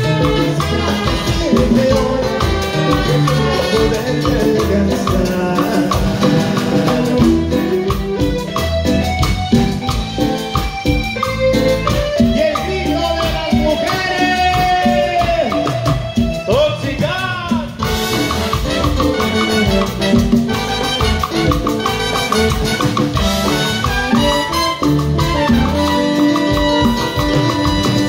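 A live cumbia band playing, with keyboard, congas, drums and a brass section of trumpets and saxophone over a steady dance rhythm. A short swooping pitch slide cuts through about seventeen seconds in.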